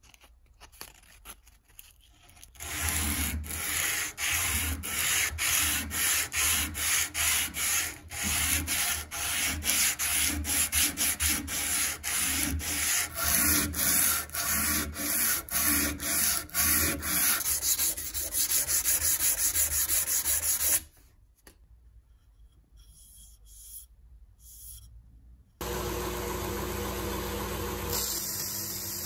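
Sandpaper on a block rubbed back and forth along a beech wood handle, about two strokes a second, for most of the time. Near the end a belt grinder switches on suddenly and runs steadily.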